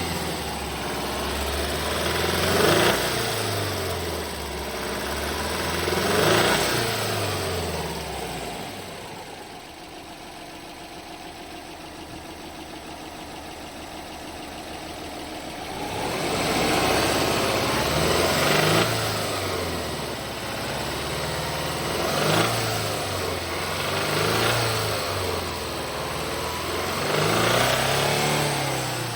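Subaru EJ20 turbocharged flat-four engine in a 2003 Legacy BP5, free-revved in a series of short blips that settle back to idle, with a steady idle in the middle before the blips resume. It carries the abnormal engine noise the owner is investigating, which a change to thicker 10W-50 oil has barely changed.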